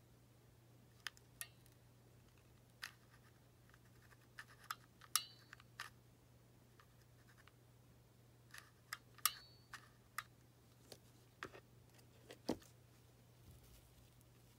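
Small handling clicks and taps as a hot glue gun and a ribbon-wrapped pen are worked by hand: about a dozen short, sharp ticks scattered irregularly, the loudest about five and nine seconds in, over a faint steady hum.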